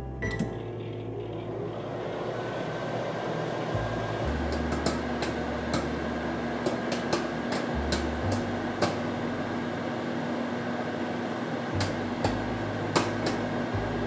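Microwave oven running with a steady hum while a bag of microwave popcorn pops inside. Sharp pops start a few seconds in and come several a second, then thin out to about a second apart near the end, the sign that the popcorn is done and the microwave should be stopped.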